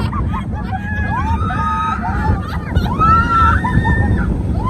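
Roller coaster riders screaming in long cries that rise, hold and fall, several overlapping, over the steady low rumble of the ride.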